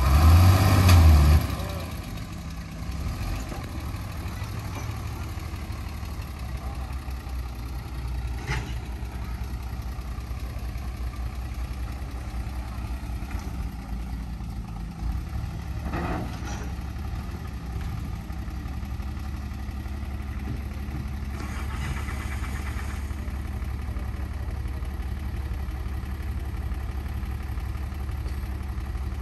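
Heavy diesel earthmoving engine, from a dump truck or bulldozer, running loud for about the first second and a half, then idling steadily. Two sharp clanks come about eight and sixteen seconds in.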